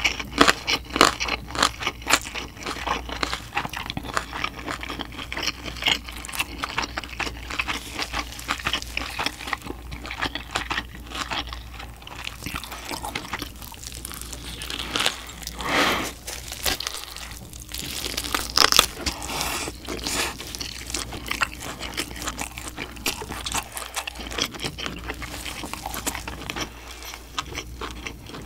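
Close-up biting, crunching and chewing of a roasted pork knuckle (Schweinshaxe): a dense run of crisp crunches and wet chewing sounds, with a few louder bites in the second half.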